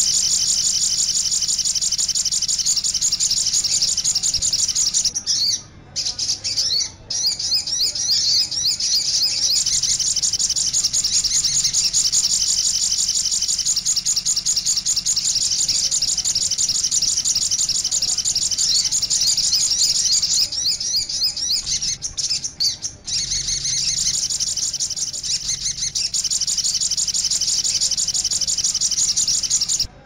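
Olive-backed sunbird (sogok ontong) singing a continuous, high, rapid twittering song, broken only by a few brief pauses.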